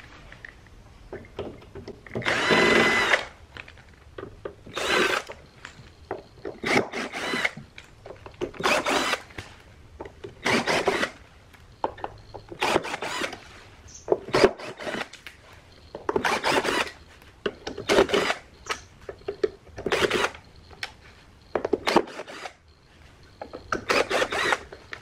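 Cordless drill-driver backing screws out of a subwoofer cabinet's metal panel, in about a dozen short runs with pauses between, the longest about two seconds in.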